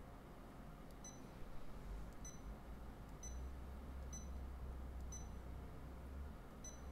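Sewing machine touchscreen giving a short high confirmation beep each time a rotate key is tapped with a stylus, about once a second. A faint low hum sits underneath from about three seconds in.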